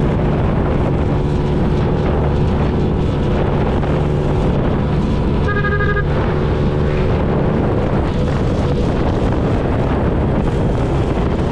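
Wind rushing over the microphone of a moving motorcycle, with the engine's steady low drone underneath. A brief higher tone cuts in a little over halfway through.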